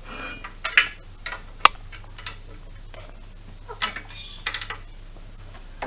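Scattered light metal clicks and knocks from the steel parts of an indoor cycling bike being handled while the seat post is adjusted, with one sharp click about a second and a half in. A steady low hum runs underneath.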